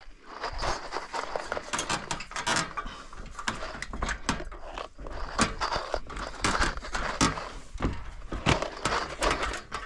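Irregular knocks, creaks and scrapes of someone climbing a ladder up onto a wooden board roof deck, with handling noise on the microphone.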